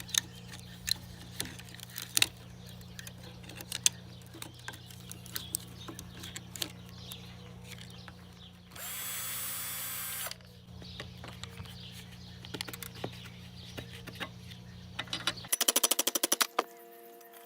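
Hand disassembly of an electric leaf blower: scattered clicks, taps and knocks of tools on plastic and metal parts over a steady low hum. A power tool whirs once for about a second and a half near the middle. Near the end the hum stops abruptly and a rapid run of clicks follows.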